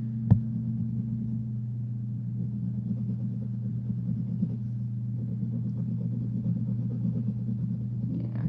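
Steady low hum, with a single sharp tap just after the start.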